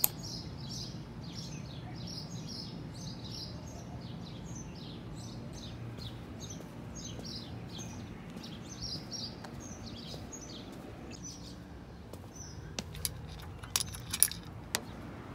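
Small birds chirping: short, high, falling notes repeated over and over, over a low steady background noise. A few sharp clicks come near the end.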